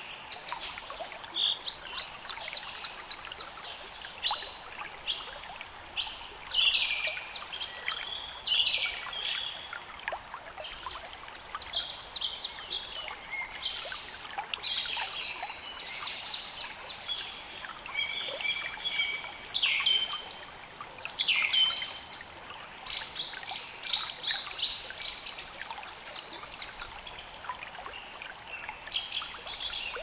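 Nature-sound recording of several birds singing and chirping in short, overlapping phrases, over the steady rush of running water.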